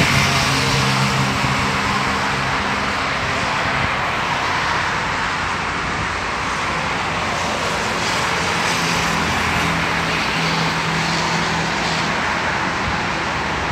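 Steady road traffic on a multi-lane road: tyre and engine noise from passing cars. An engine hum stands out near the start as a motorcycle goes by, and another passing engine can be heard in the second half.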